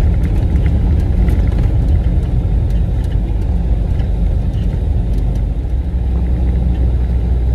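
Steady low rumble of a truck's engine and tyres, heard from inside the cab while driving on a snow-covered road.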